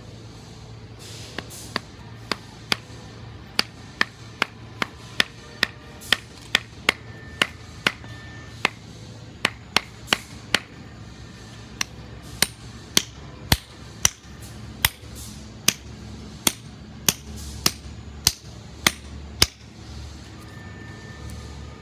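Sharp knocks, about two a second with a short break past halfway, as a wooden stick is struck repeatedly to seat a scotch-eyed auger bit on its end.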